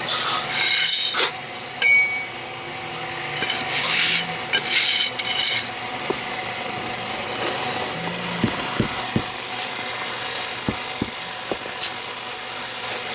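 Power saw running steadily with a continuous high hiss, cutting through masonry, with a few light knocks in the second half.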